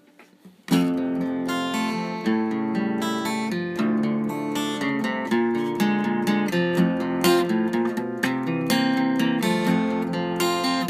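Acoustic guitar strumming a chord progression, starting suddenly under a second in with a steady rhythm of strokes: the instrumental intro of a song built on four chords, just before the singing comes in.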